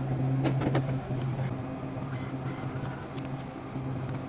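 Vending machine humming steadily, with a couple of light clicks about half a second in.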